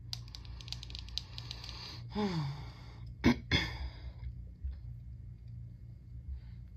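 Sunglasses being handled close to the microphone: a run of small clicks and light rattles from the frames and the dangling raindrop charms on their chains. A short falling hum comes from the wearer about two seconds in, and two sharper clicks follow just after three seconds.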